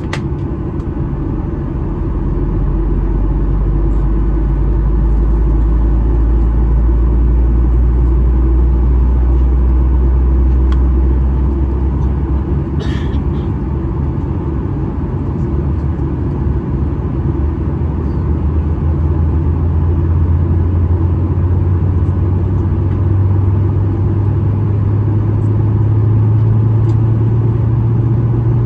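Boeing 737-800's CFM56-7B jet engine spooling up during engine start, heard inside the cabin: a steady rumble with a low hum that climbs in pitch in steps.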